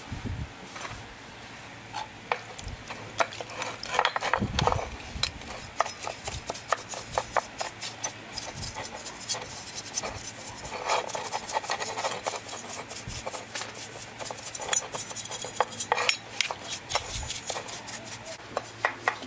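Paintbrush bristles scrubbing a small engine's finned aluminium flywheel in a metal pan of cleaning liquid: quick rasping strokes with liquid swishing and many small clicks and clinks of metal against the pan.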